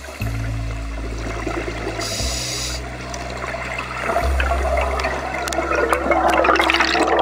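Underwater rushing and bubbling of a scuba diver's exhaled air from the regulator, louder and denser in the last few seconds.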